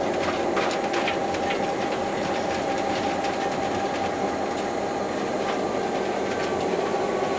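Diesel locomotive heard from inside its cab while it rolls along: a steady engine drone holding a couple of level tones, with occasional short clicks.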